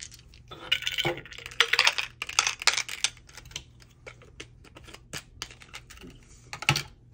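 Small hard plastic items clicking and tapping as they are handled on a desk. A dense run of rapid clicks comes in the first few seconds, then scattered taps, and one sharper knock near the end.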